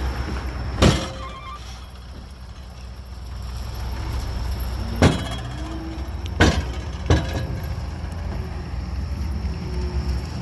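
Heavy diesel construction machinery running with a steady low rumble, broken by four sharp clanks: one about a second in and three more between about five and seven seconds in.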